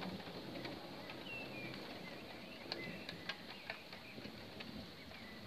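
Quiet outdoor ambience with birds chirping now and then, short high chirps a few times, and scattered faint ticks over a steady low background.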